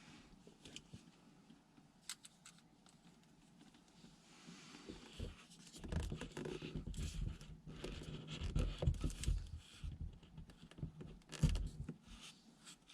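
Irregular rustling and scraping with scattered soft knocks, busier and louder from about five seconds in until near the end.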